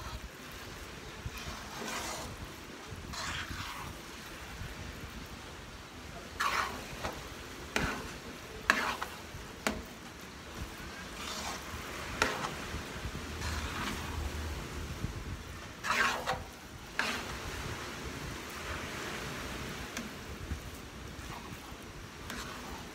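A metal spoon scraping and knocking against a metal pan as it stirs thick, sticky glutinous rice with jackfruit, with a low sizzle from the cooking mixture underneath. The scrapes come in irregular strokes, a few sharper knocks among them.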